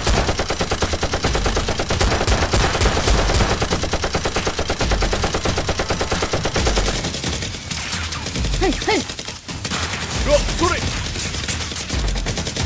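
Rapid automatic gunfire sound effects, dubbed over toy blasters, firing in a dense continuous stream for about the first six seconds. The fire thins out with a few short gliding cries in the middle, then picks up again rapidly near the end.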